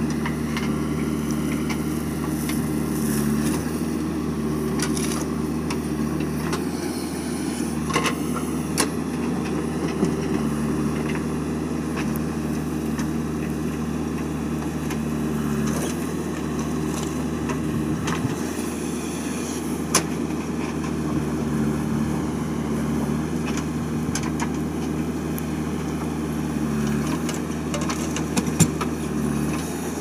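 JCB 3DX backhoe loader's diesel engine running steadily under load while it digs soil and swings the bucket to load a lorry, with a few short sharp knocks scattered through.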